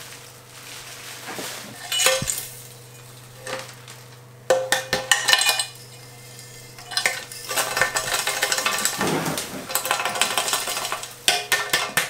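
Light metallic clinking and rattling in several bursts as the bare metal bike frame is handled during unwrapping.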